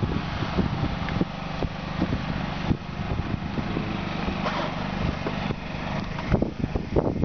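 Small boat engine running steadily, with short knocks and wind on the microphone over it.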